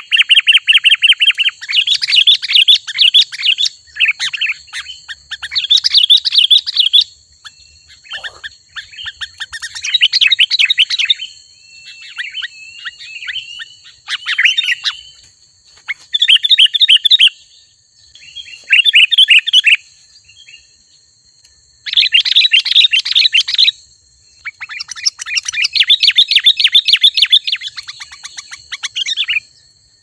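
Sooty-headed bulbul (kutilang) singing in repeated bursts of rapid chattering notes. Each burst lasts one to two seconds, with short pauses between.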